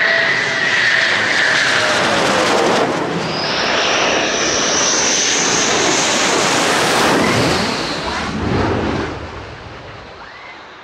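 Fighter jets passing low overhead: a Eurofighter Typhoon's jet whine falls in pitch as it goes by, then an F-15's high whine rises as it comes in. The loud jet noise fades away over the last few seconds.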